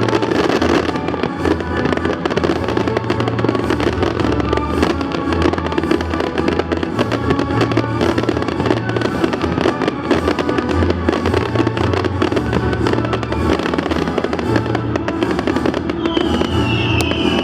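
Fireworks crackling and popping densely over loud show music with a stepping bass line.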